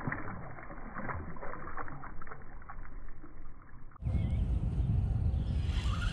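Sounds of a boat on the water, muffled at first with small knocks, then suddenly louder with a strong low rumble about four seconds in. A goose honk begins right at the end.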